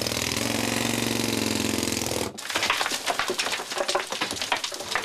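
A steady drone cuts off suddenly about two seconds in. A rapid, irregular run of sharp knocks and clattering follows: a hand pick striking rock and breaking loose fragments.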